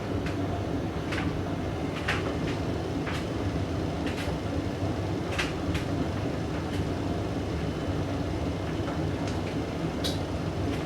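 Hoover DYN9144D3X front-loading washing machine washing a load of blankets: a steady motor and drum rumble, with short sharp noises every second or so as the drum turns.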